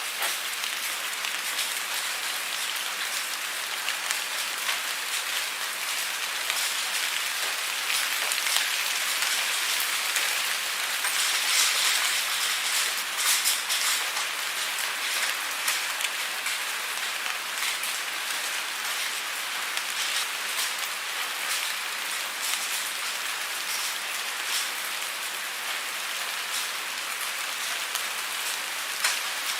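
Steady rain falling on a surface, an even hiss dotted with the ticks of individual drops, a little heavier for a few seconds in the middle.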